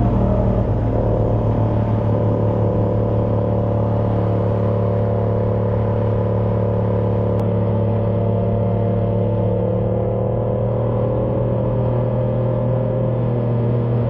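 Sport motorcycle engine running at a steady cruise with road and wind noise, its note rising slightly in the last few seconds as the bike picks up speed.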